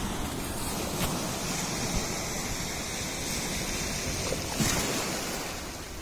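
Black Sea surf washing and foaming through shoreline rocks: a steady rushing hiss, with one louder surge near the end.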